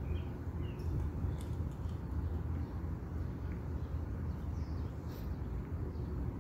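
Small birds chirping: a few short rising chirps in the first second, then fainter high calls a little after the middle, over a steady low rumble.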